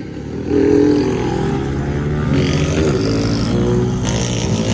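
An engine running, its pitch rising and falling, stepping louder about half a second in.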